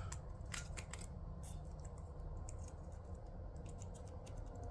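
Faint, scattered light clicks of small metal hardware being handled: steel washers set down onto cylinder head studs. A steady low hum runs underneath.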